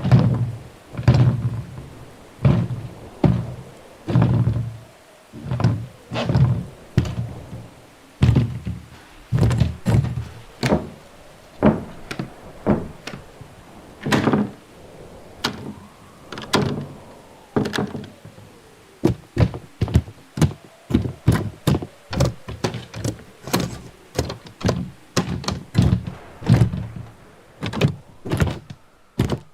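A string of door sounds: heavy door thuds about one a second, then a quicker run of sharper knocks and bangs from about two-thirds of the way in.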